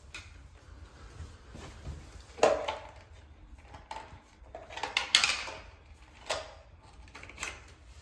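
Hard plastic clicks and knocks of Dyson V10 cordless vacuum attachments being swapped by hand: a small tool is pulled off and the motorised cleaner head is clicked onto the wand. There are a handful of separate knocks, and no motor running.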